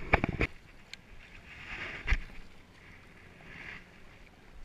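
Small waves lapping against the shore's edge, swelling and fading, with a quick series of knocks right at the start and a single knock about two seconds in.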